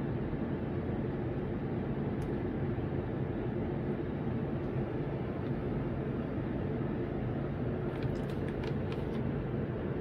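A steady low mechanical hum, with a faint tick about two seconds in and a few light ticks near the end.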